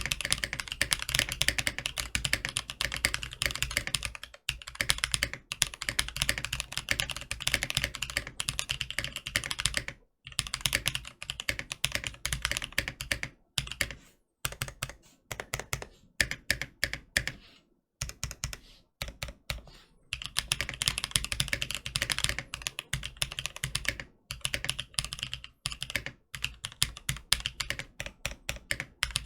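Typing on a Tofu 65 mechanical keyboard fitted with prototype Gazzew Boba Linear Thock switches, with an o-ring mounted PCB, polycarbonate plate, acrylic case and no case foam: fast runs of thocky key strokes broken by short pauses.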